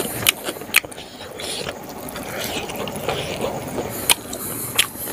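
Close-up eating sounds of a mouthful of smoked pork and rice being chewed, with wet mouth smacks and about five sharp clicks at irregular intervals.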